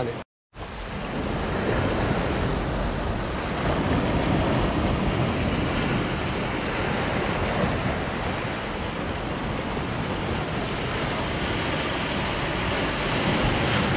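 Sea waves breaking and washing over a rocky shoreline in a steady rush of surf, with wind blowing on the microphone.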